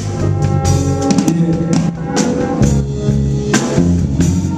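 Live band playing: drum kit and bass under sustained keyboard chords, with regular drum hits.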